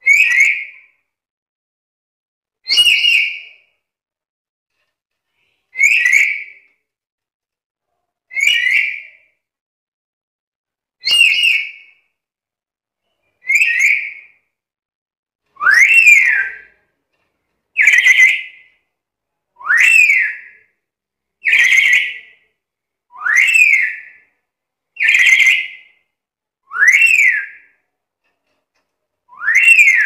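Black-capped lory giving a series of about fourteen short, shrill calls, one every two seconds or so. The calls come a little faster from about halfway through, and those later calls sweep sharply up in pitch and drop again.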